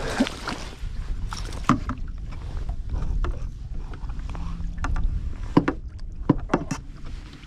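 A small fishing boat on choppy water with a steady low wind rumble on the microphone, broken by several sharp clicks and knocks from handling in the boat.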